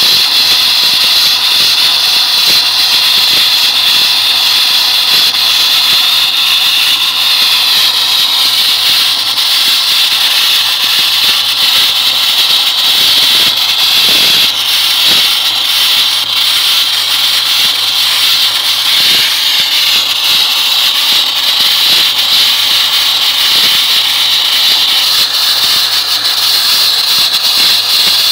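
Wet abrasive blasting nozzle spraying a pressurised water-and-sand mix, at about 90 psi, against a steel car body panel to strip paint and rust: a steady, loud hiss.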